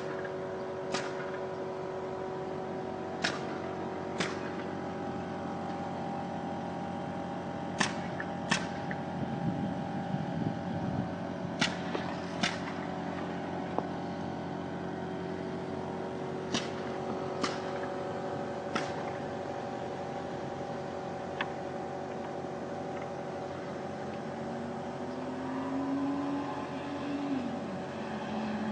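A steady machine-like hum with about ten sharp knocks or taps at irregular intervals, one to four seconds apart. Near the end a lower tone rises and holds, and the sound gets louder.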